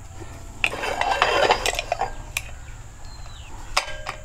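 Metal clinks and scraping as a pressure cooker whistle weight is pushed down onto the vent pipe of the cooker lid and the lid is lifted and turned over. There is a click about half a second in, a longer scrape with light metallic ringing around the middle, and a few more clicks near the end.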